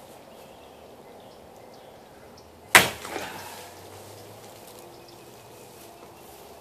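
One chop of a large handmade chopper knife through a plastic bottle standing on a wooden plank: a single sharp whack a little under three seconds in, with a short fading tail.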